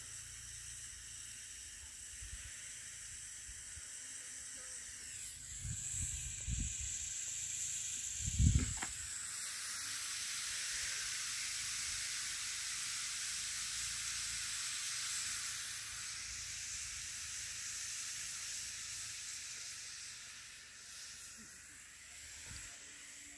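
Green bamboo tubes of chicken roasting on a wood fire, hissing and sizzling as steam escapes from them; a single thump about eight seconds in.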